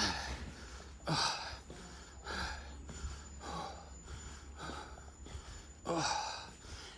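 A man breathing close to the microphone, about six breaths roughly a second apart, over a low steady rumble.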